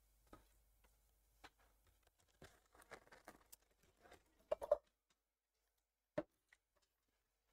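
Faint, scattered taps and clicks of trading cards being handled and sorted on a desk, with a few louder clicks about four and a half seconds in and one about six seconds in.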